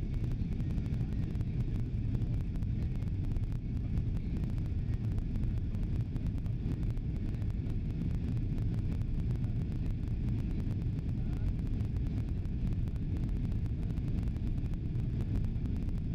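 Steady low rumble of a jet airliner's cabin in flight: engine and airflow noise heard from a window seat.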